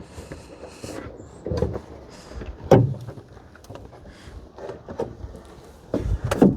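Car door handling: a series of knocks and clunks, the loudest about three seconds in and another near the end.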